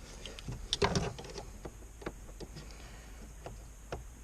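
Scattered light clicks and knocks of hands and tools working an oil cooler hose into its fitting, with a small cluster of louder knocks about a second in.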